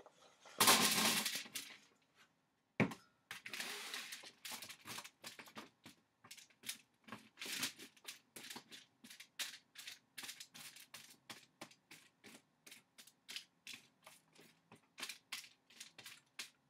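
Halved Brussels sprouts poured from a stainless steel bowl onto a foil-lined baking sheet in one quick rush, then a single sharp knock. After that, a long run of short scrapes and foil crinkles, about two or three a second, as a silicone spatula pushes the sprouts around on the foil.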